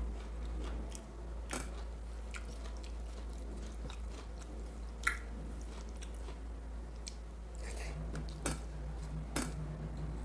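Close-up mouth sounds of a person chewing mutton curry and rice, with scattered wet clicks and smacks, over a steady low hum.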